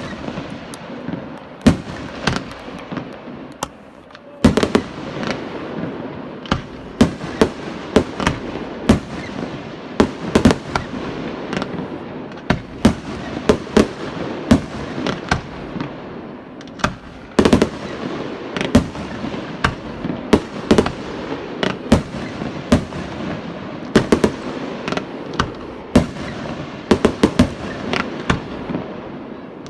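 Aerial fireworks display: a rapid, irregular string of sharp bangs and reports, several a second, over continuous crackling, with a short lull about four seconds in.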